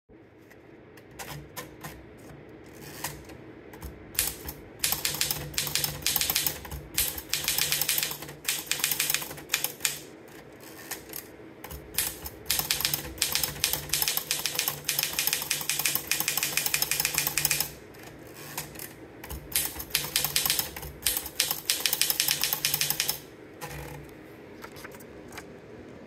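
Torpedo Model 18 portable manual typewriter: a few scattered clicks, then three runs of fast, loud key and typebar strikes, each several seconds long, with short pauses between them.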